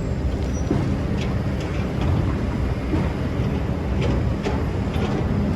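Excavator engine running steadily while digging sand, with scattered short knocks and a few brief squeaks from the machine at work.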